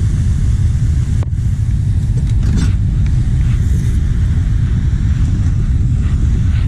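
Vehicle driving, a steady low rumble with a few light knocks.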